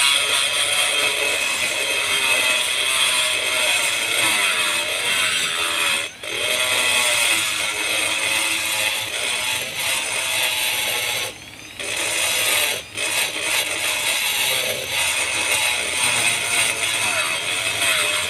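A high-speed power tool running with a steady hissing whine, cutting out briefly about six seconds in and again around eleven and thirteen seconds in.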